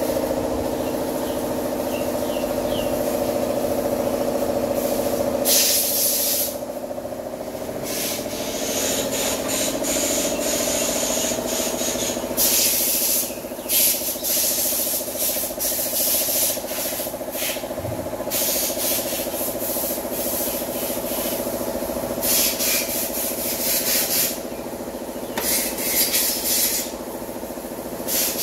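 Small engine running steadily. Repeated hissing, rasping bursts of about a second each sound over it, several times.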